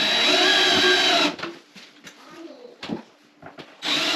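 DeWalt cordless drill driving screws into a wooden cabinet frame: a run of about a second and a half at the start, its whine rising then falling in pitch, and a shorter run near the end.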